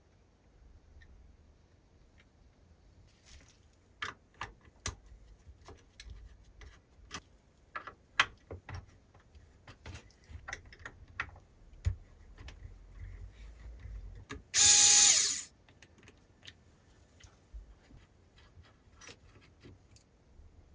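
Scattered light clicks and taps of small hand tools, a soldering iron and a screwdriver, working on a circuit board inside a metal spot-welder housing. About three-quarters of the way through comes one loud rushing burst lasting about a second.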